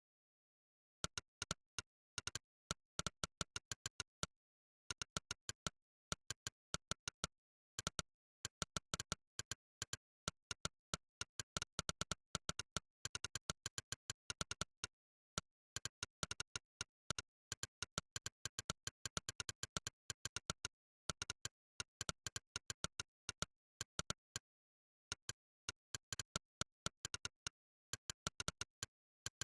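Monkeytype's synthetic 'click' keypress sound effect, one short click per keystroke, in fast runs of several clicks a second broken by brief pauses, starting about a second in. Between clicks there is dead digital silence.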